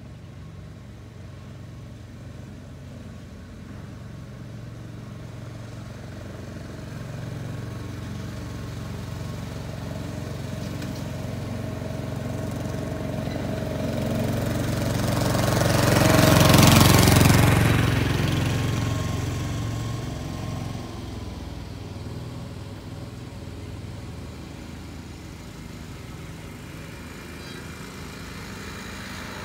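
A small engine-driven miniature railway locomotive approaching and passing close by: its engine sound builds over about fifteen seconds, is loudest about seventeen seconds in, then fades as it moves away.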